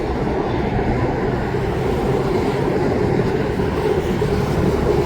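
A train running by: a steady rumble with a held droning tone that grows stronger toward the end.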